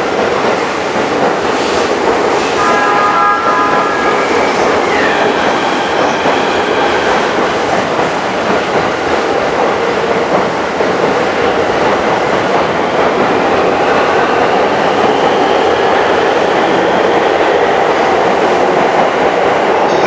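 An E231 series electric train accelerating past on the track, with a steady run of wheel and rail noise and clicking. Faint inverter tones from the motors glide in pitch, rising slowly through the second half. A brief pitched tone sounds about three seconds in.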